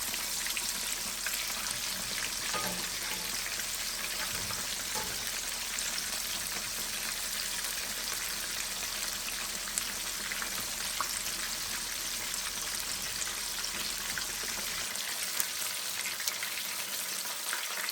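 Battered chicken pieces shallow-frying in hot oil in an iron skillet: a steady sizzle with small scattered pops.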